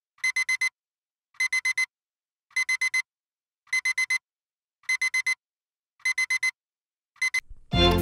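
Mobile phone alarm beeping: quick high beeps in groups of four, about one group a second. Music comes in over the last beeps near the end.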